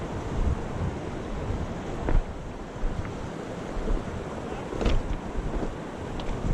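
Fast-flowing river water rushing steadily, with wind buffeting the microphone. Two brief sharp knocks come about two and five seconds in.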